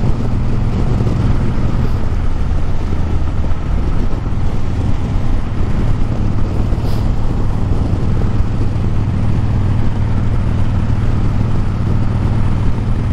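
Harley-Davidson Breakout's V-twin engine running steadily at cruising speed, heard from the saddle, with a steady rush of wind and road noise over it.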